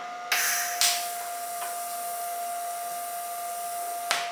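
TIG welder tack-welding a steel mount: the arc strikes sharply just after the start and then hisses steadily, with a short sharp burst near the end.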